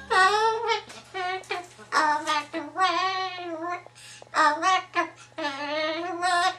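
Umbrella cockatoo singing in a string of short, wavering phrases, a bird's imitation of a human pop song.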